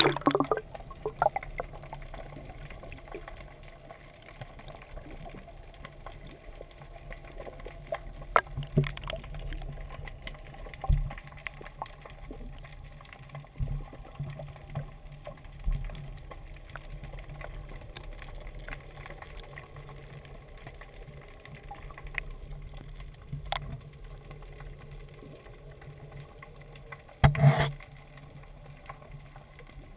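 Muffled underwater sound from a submerged camera: a steady low water rumble with scattered soft knocks, and one louder knock near the end.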